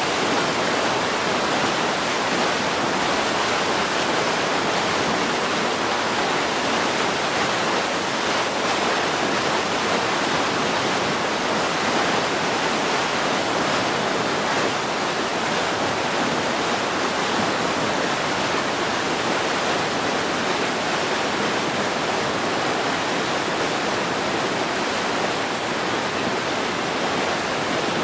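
Steady, unbroken rush of a stream running high in spate after heavy rain.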